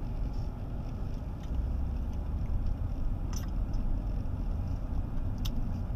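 Road and engine rumble inside a moving car's cabin, a steady low drone that grows a little louder after about a second and a half, with a couple of faint clicks.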